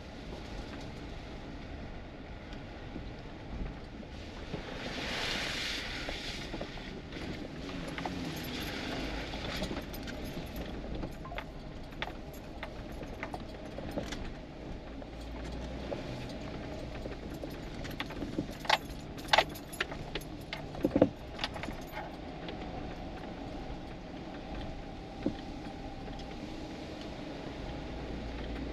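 Inside a vehicle's cab driving slowly over a bumpy sandy dirt track: a steady low rumble of engine and tyres, with loose things in the cab clinking and rattling over the bumps. There is a brief swish about five seconds in and a cluster of sharp clatters about two-thirds of the way through.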